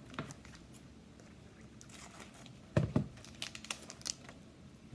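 Plastic wrapper of a trading-card pack crinkling as it is handled and opened, with a couple of sharp crackles about three seconds in.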